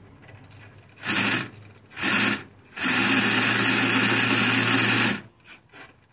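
SC-3 Vortex sail winch servo whirring as it swings the sheeting arm. It makes two short runs, then a longer steady run of about two seconds, followed by a couple of faint blips.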